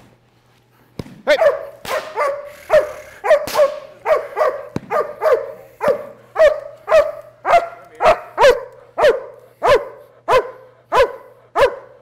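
Doberman barking in a steady rhythm, about two barks a second, starting about a second in. It is a protection dog's bark and hold: barking at the decoy without biting.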